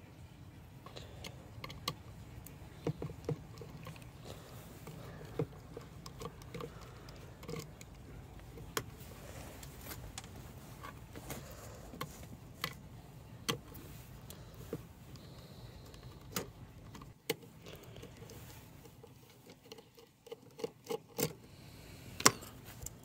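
Scattered light clicks and taps as a 3.5-inch hard drive is handled on a wooden deck and a small precision screwdriver is set to the screws of its circuit board. A quicker run of clicks comes near the end.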